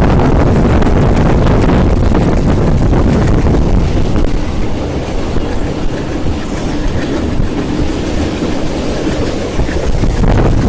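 Passenger train running along the track, heard from on board: a loud, steady rumble of wheels on rail that eases a little in the middle and grows louder again near the end.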